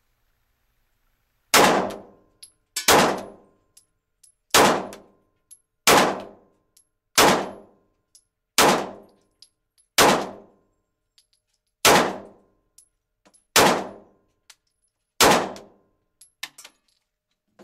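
Ten 9mm pistol shots from a Glock 19, fired at a steady pace of about one every second and a half. Each shot rings briefly off the walls of an indoor range.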